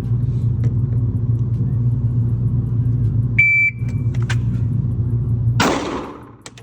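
A vehicle engine idling with a steady low hum. About three and a half seconds in there is a short high beep and a few clicks. Near the end the hum stops and a short loud rush of noise follows.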